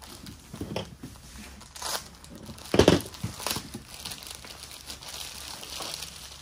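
Plastic packaging crinkling and rustling as packets are handled and opened, with a louder thump about three seconds in.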